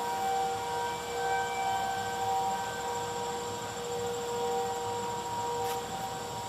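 Outdoor civil-defence warning siren heard from afar, holding a steady multi-note tone that swells and fades slightly, during its routine monthly test of the tornado and nuclear-plant warning system.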